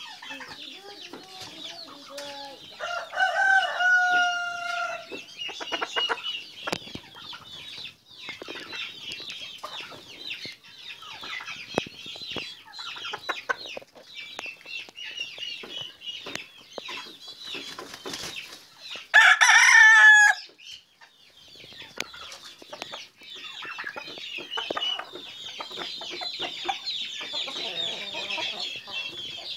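Chickens clucking and chattering continually, with a rooster crowing: a held, pitched crow about three seconds in, and a louder, harsher call for about a second and a half near twenty seconds in, the loudest sound.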